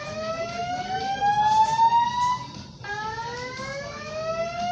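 Fire alarm voice-evacuation system sounding its whoop tone: a buzzy tone that slides steadily upward, cuts off, and starts low again to rise once more about three seconds in.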